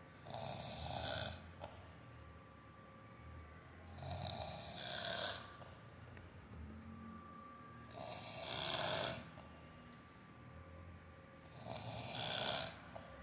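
A sleeping person snoring: four snores, each about a second long, coming roughly every four seconds.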